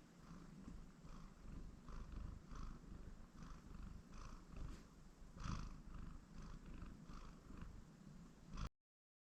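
Pastel calico cat purring faintly, a low steady rumble with a soft, regular rasp about three times a second; it cuts off suddenly near the end.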